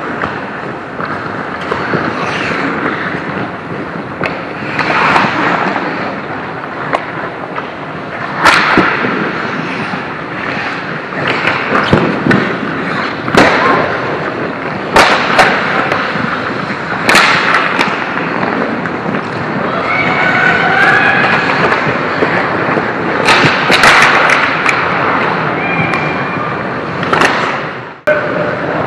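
Ice hockey play at close range: skate blades scraping the ice under a steady rink din, broken by repeated sharp cracks of sticks and puck striking. A few shouted calls come in the second half.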